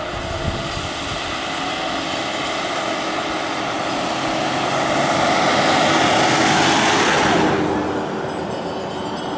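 Road traffic: a motor vehicle passing close by, its engine and tyre roar swelling to a peak and then falling away sharply about three-quarters of the way through.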